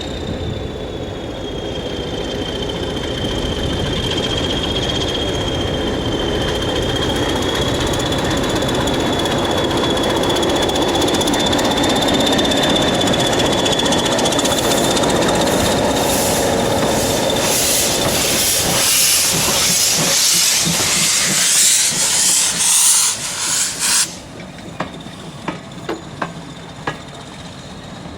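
A train running past on the rails, with a steady, slightly wavering high squeal from the wheels over a rumble. A loud hiss builds up and then cuts off suddenly, leaving a train of evenly spaced clicks from wheels crossing rail joints.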